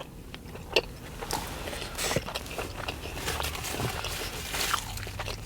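A person chewing a mouthful of toasted sub sandwich close to the microphone: irregular soft crunches and small wet mouth clicks, with one sharper click less than a second in.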